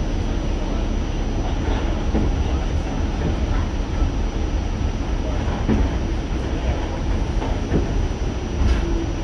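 New York City subway train running, heard from inside the car: a steady low rumble of wheels on the rails with irregular clatter and knocks, one louder knock near the end.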